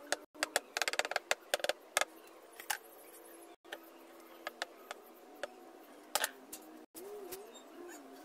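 Sharp light clicks and taps from paint being worked on a canvas, dense in the first two seconds and scattered after. A pigeon coos near the end.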